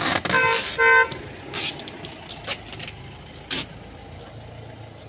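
Two short horn toots, half a second apart, about half a second in: the loudest sounds. Around them come several brief rasps of packing tape being pulled off the roll as a cardboard carton is taped shut.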